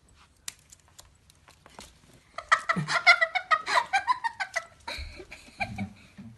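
A cat giving a quick run of loud, angry cries for about two seconds, after a few light clicks.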